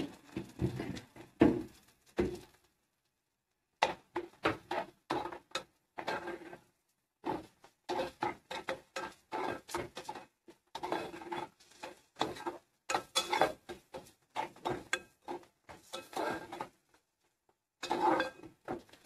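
A spoon stirring and scraping thick onion-tomato masala in a cooking pan, working the freshly added spice powders in. It comes as runs of quick knocks and scrapes with short pauses between them.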